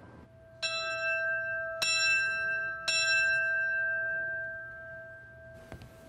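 Small bronze bell rung three times, about a second apart, each stroke ringing on and fading away over a few seconds.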